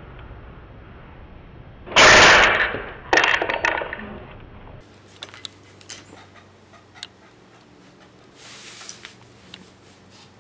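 A wooden rat trap snapping shut on a hand with a very loud crack, followed about a second later by a quick cluster of sharper knocks; afterwards only small scattered taps.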